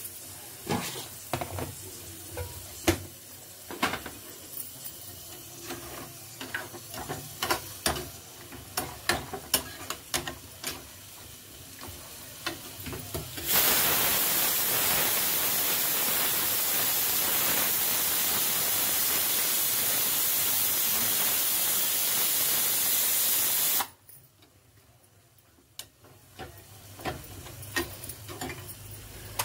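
Metal kitchen utensils clinking and knocking against pots and containers. About halfway through, a loud steady hiss starts suddenly, lasts about ten seconds and cuts off abruptly; clinks of a ladle in the pan come again near the end.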